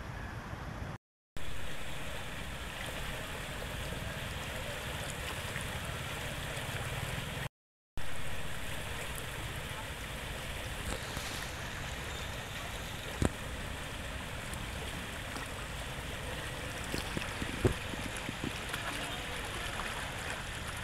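Steady rushing and gurgling of floodwater swirling in a waterlogged street. The sound cuts out briefly twice near the start, and a couple of sharp clicks come in the second half.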